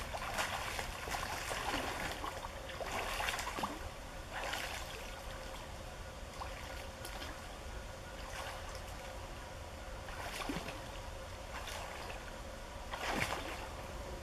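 Water splashing from a person swimming across a river, kicking and paddling while held afloat by inflated bicycle inner tubes. Irregular splashes come every second or two, the loudest near the end, over a steady low rumble.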